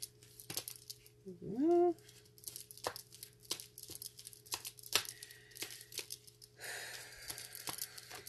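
A deck of cards being shuffled by hand: a run of crisp snaps and clicks, with a longer rustling spell near the end. About a second and a half in, a voice gives a short rising hum.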